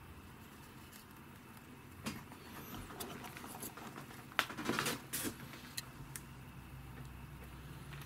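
Faint low hum with a few irregular light clicks and taps, a small cluster of them about halfway through.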